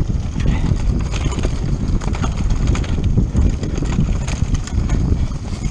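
Mountain bike descending a rough dirt trail at speed, heard from a camera on the bike or rider: dense, irregular rattling and knocking of tyres, chain and frame over roots and bumps.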